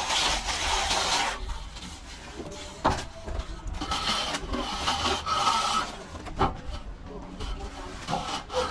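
Plastering trowel scraping across plaster in stretches of strokes, with two sharp knocks about three and six seconds in.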